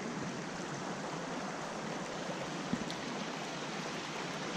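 Shallow stream water running over rocks, a steady rush with no break.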